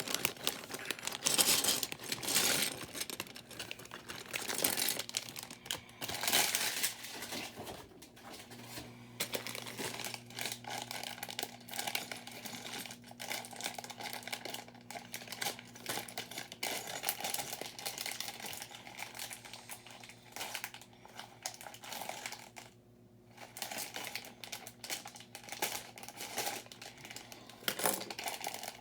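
Plastic parts bags of building bricks being torn open and crinkled, with scattered light clicks.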